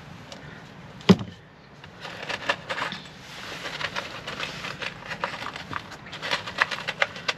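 A single loud knock about a second in, then a run of irregular clicks and rustles: parts and tools being handled during fitting work inside a van.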